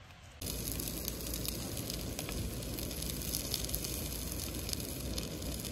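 White sausages sizzling and spitting as they fry on a small butane-propane camping stove: a dense crackle full of fine pops that starts suddenly about half a second in.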